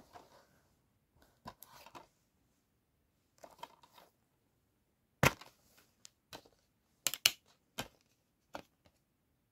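Plastic DVD case being handled and opened. There is soft scraping and rustling at first, then a loud sharp plastic snap about five seconds in. A series of sharper clicks follows as fingers work the hinged disc trays and the discs on their centre hubs.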